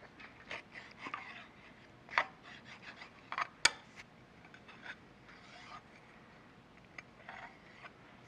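Scattered metal clicks and scrapes as the workpiece and parallel bars are handled in a milling-machine vise, with one sharp clink about three and a half seconds in; the mill is not running.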